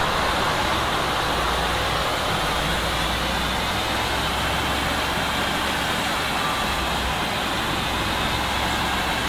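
Audi RS6 Avant (C8) running at a steady speed on a chassis dyno: an even rush of tyre, roller and fan noise over a low, steady engine hum, with no revving.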